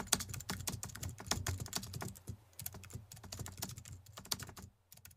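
Computer keyboard typing sound effect: a fast, irregular run of key clicks that thins out and fades near the end.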